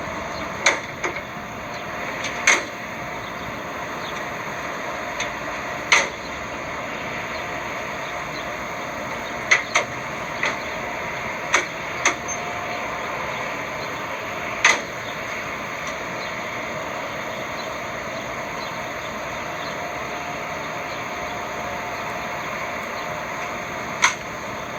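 Scattered sharp knocks and clunks, about nine of them at irregular intervals, over a steady even background noise.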